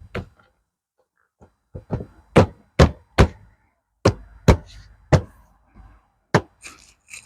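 A dozen or so sharp, irregular knocks and thunks, with a few lighter clicks near the end, from hands handling and pressing the generator's plastic access cover back into place.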